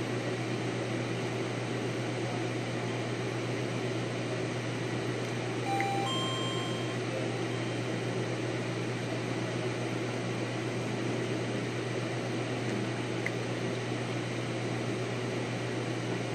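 Steady machine hum and air noise, as from ventilation and running equipment, with a few short electronic tones about six seconds in.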